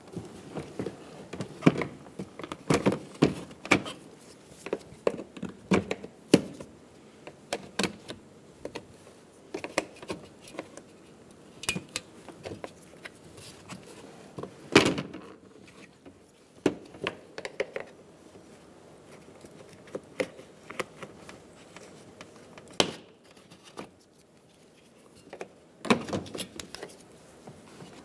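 Irregular plastic clicks, snaps and knocks: the upper grille's clips being pried and popped out through the front bumper cover of a 2007–2011 Toyota Camry, with the plastic grille and bumper knocking as they are handled. The sharpest snap comes about halfway through.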